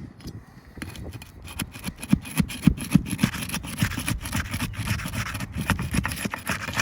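Steel flat bar scraping and prying along the sealant line under asphalt shingle tabs, starting about a second in: a dense run of scrapes and sharp cracks as the solidly bonded sealant tears loose. The shingles are shredding along the sealant line instead of releasing cleanly.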